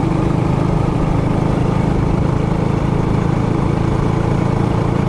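Trailmaster Hurricane 200X mini bike's small single-cylinder four-stroke engine running at a steady speed under way.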